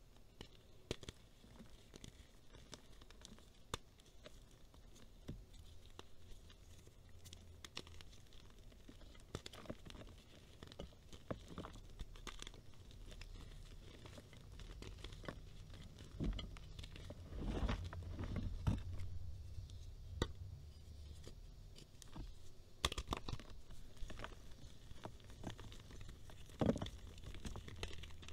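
Hands crushing and crumbling reformed gym chalk, soft chalk blocks and loose powder squeezed in the fists, giving a steady stream of soft crunching and crackling with sharper crunches. It gets busier and louder about two-thirds of the way in and again near the end.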